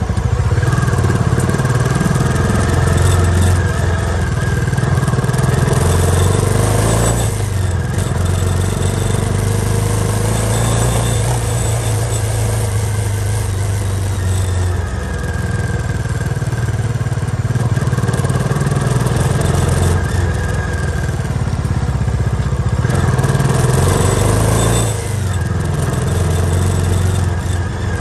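Motorcycle engine running under way, with steady wind and tyre noise over it. The engine note changes pitch a few times: about a quarter of the way in, around the middle, and again near the end.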